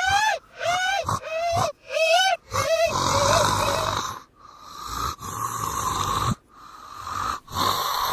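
A person's voice making creature noises, played backwards. First comes a run of short pitched squeals, about two a second. From about three seconds in, longer rasping, breathy growls follow, with short gaps between them.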